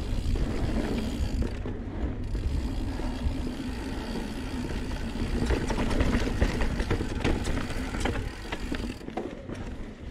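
2019 Santa Cruz Blur mountain bike riding down a dirt singletrack: a steady low rumble of the tyres on the trail, with many small clicks and rattles from the bike over the bumps and roots.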